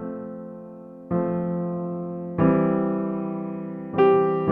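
Slow background music on a piano-like keyboard: sustained chords struck about every second and a half, each one fading before the next.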